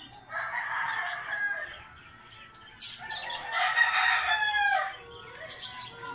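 A rooster crowing twice, the second crow louder and longer, falling in pitch at its end.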